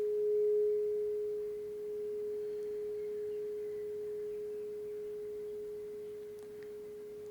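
A tuning fork ringing a single steady pure tone that slowly fades away.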